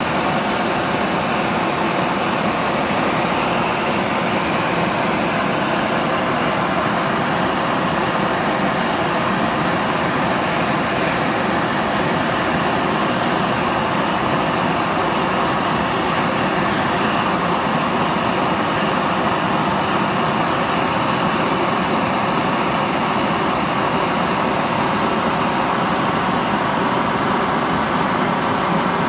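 Gas torch burning steadily against a Honda Dio scooter's exhaust muffler, with flames pouring out of the muffler as the carbon buildup inside burns off: a constant, unbroken rushing noise of the gas jet and fire.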